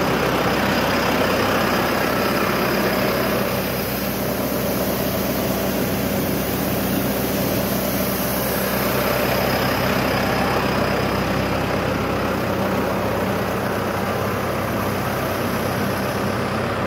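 Tractor diesel engine running steadily, driving a PTO-powered water pump, with a steady rush of water pouring from the wide discharge hose.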